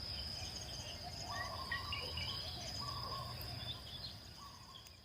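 Insects trilling steadily on one high note while a bird repeats a short call phrase three times, the whole fading out near the end.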